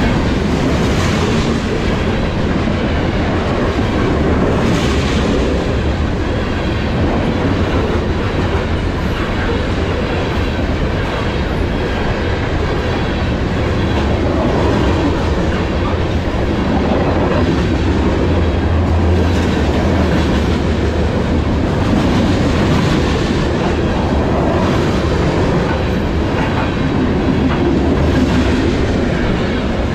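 BNSF freight train cars, coal gondolas and a boxcar, rolling past close by: steel wheels on the rails make a steady, loud rumble with occasional sharp clacks.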